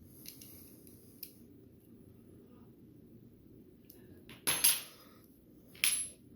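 Small metal parts of a folding knife and its tools being handled: a few faint clicks, then two sharp metallic clacks about a second and a half apart, each ringing briefly. The work is on tightening the knife's loose pivot.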